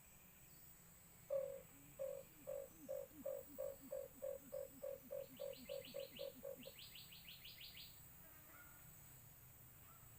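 White-eared brown dove calling: a run of about seventeen low hooting notes that start loud and come quicker and fainter. A short high rapid trill sounds twice over the later notes.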